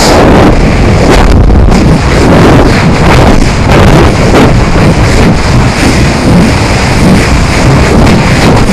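Loud, steady wind rush buffeting the onboard camera's microphone as the rocket's fiberglass sustainer falls under a small drogue parachute, descending at around 98 feet per second.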